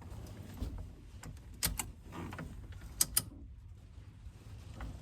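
Sharp metallic clicks and light clatter of hands working on a truck's battery and wiring connections, with two quick clicks close together about three seconds in.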